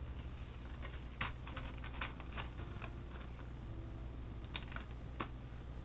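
Scattered light clicks and taps of small hard keyboard parts, such as the PCB, screws and plastic pieces, being handled during a custom keyboard build, in a few irregular clusters over a steady low hum.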